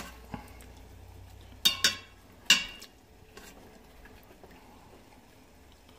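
Kitchen tongs clinking against the stainless steel inner pot of an Instant Pot while lifting out chicken pieces: a few knocks, each with a short metallic ring, the sharpest about two and a half seconds in.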